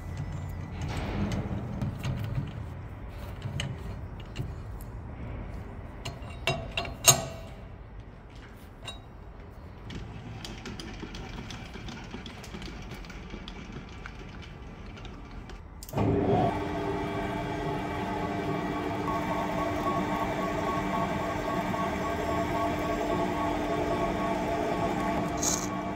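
Workshop handling noise with a cluster of sharp knocks about a quarter of the way in. About two-thirds of the way in, a large centre lathe starts up suddenly and runs steadily with a whine of several steady tones.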